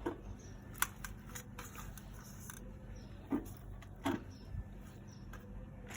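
Faint handling sounds: a few light clicks and taps as used tea leaves are tipped into a compost bucket.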